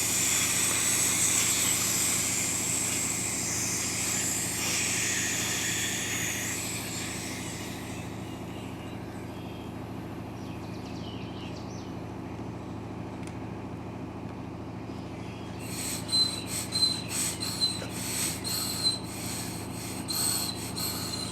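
Air hissing out of a lawn mower tire through the open valve stem with its core removed, fading away over the first several seconds as the tire deflates. A steady low hum runs underneath, and a string of small clicks and taps comes near the end.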